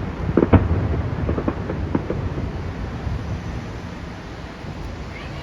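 Fireworks going off: a cluster of sharp bangs and crackles in the first two seconds over a low rumble, which then dies away into a steady low rumble.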